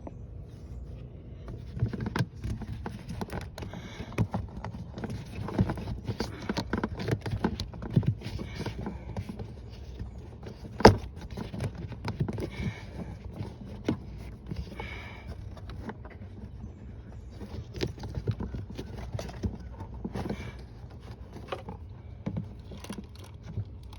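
Hands refitting the air intake hose under the hood of a 2012 Dodge Grand Caravan: irregular clicks, knocks and rustling, with one sharp, loud knock about halfway through.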